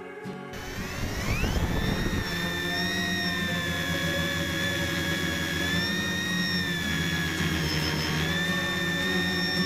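A tricopter's three electric motors and propellers spin up with a rising whine about a second in, then hold a steady high whine that wavers up and down in pitch as it flies.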